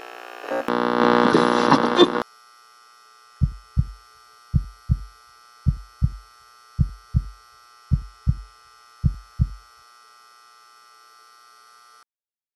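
Slow heartbeat: six double thumps, lub-dub, about a second apart, over a faint steady electronic hum. Before it, a loud sustained drone of several tones cuts off about two seconds in.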